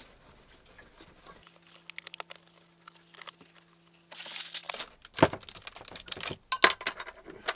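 Clicks and crinkling as a freshly heated tin of beans is opened and handled, with a short rasping noise about four seconds in, then a string of sharp knocks as things are set down on the plates.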